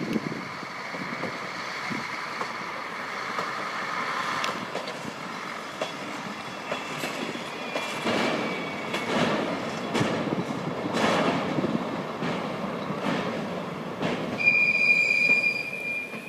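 ZSSK class 813 diesel railcar unit passing, with its running rumble and wheels clicking over rail joints. A steady, high-pitched wheel squeal lasting about a second comes near the end.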